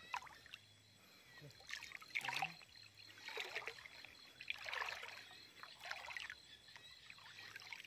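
River water sloshing and splashing in four surges about a second apart, from a person wading waist-deep and working a cast net.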